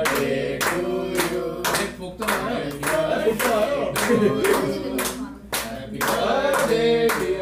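A group clapping in time, about two to three claps a second, over voices singing a birthday song.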